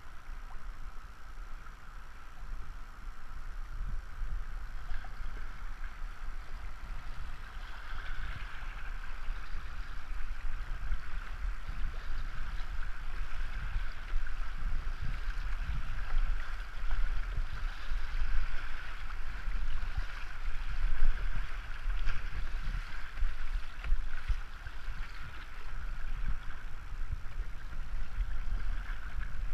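River water rushing and splashing around a kayak being paddled down a fast, shallow stretch, with a steady hiss of flowing water and a low rumble of wind on the microphone.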